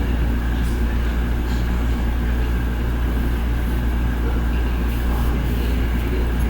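Steady low rumble and hum of background noise with no distinct events.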